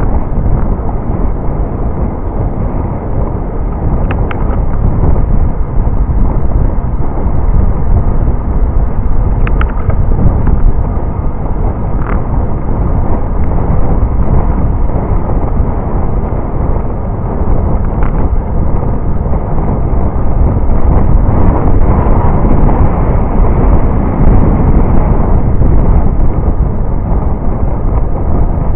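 Steady, loud wind buffeting the microphone of a camera on a moving road bicycle, mixed with road rumble; a few brief faint high tones cut through it.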